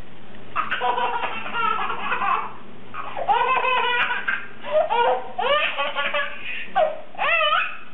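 A baby laughing in several bursts of high-pitched giggles with short pauses between them.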